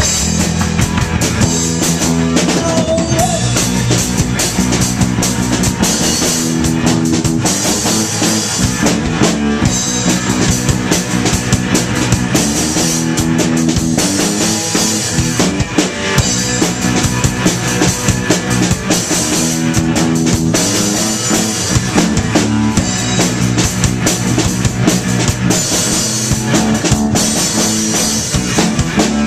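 Young rock band playing live: drum kit and electric bass drive a loud, steady rock beat.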